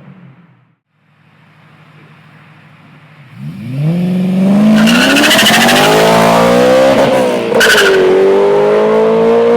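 BMW E9X M3's S65 V8 heard through its exhaust: quiet steady running, then about three seconds in a hard, loud acceleration with the pitch climbing steeply. A brief dip in pitch a little past halfway, like an upshift, comes before the note climbs again.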